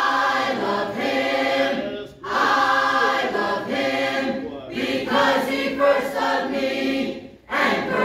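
Mixed choir of adults and children singing a gospel hymn together, in sustained phrases with short breaks between them about two seconds in and again near the end.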